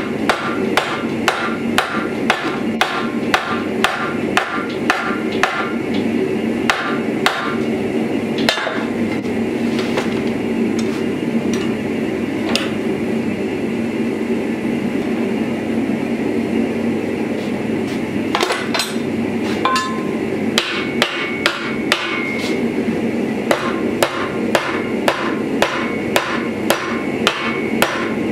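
Hand hammer striking red-hot steel clamped in a bench vise, in runs of quick blows about two or three a second, with a pause of several seconds in the middle before the hammering resumes. A steady hum runs underneath.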